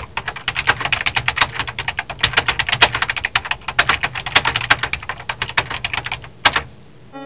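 Rapid typing on a laptop keyboard: a fast, uneven run of keystroke clicks that stops about half a second before the end, leaving a faint hiss.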